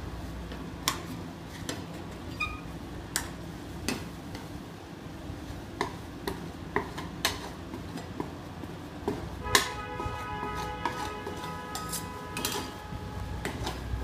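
Steel spatulas tapping and scraping on a frozen steel rolled-ice-cream pan: irregular clicks and clinks over a steady low hum. About halfway through, a louder clink is followed by ringing tones that last a couple of seconds.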